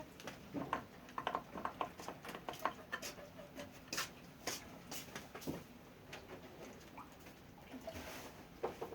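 Rabbits moving about in their cage, making irregular small clicks, scratches and rustles.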